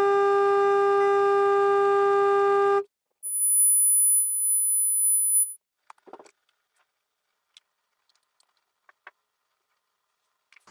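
Function-generator test tones played through the Lepy LP-2024A+ mini amplifier: a steady low tone with many overtones that cuts off about three seconds in, then a steady very high-pitched tone for about two seconds. After that only a few faint clicks and taps.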